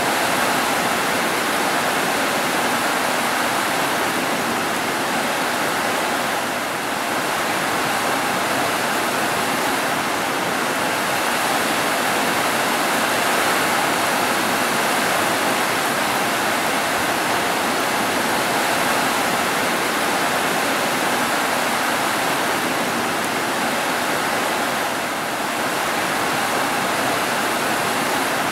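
Heavy rain pouring steadily onto roofs: a dense, even hiss that barely changes.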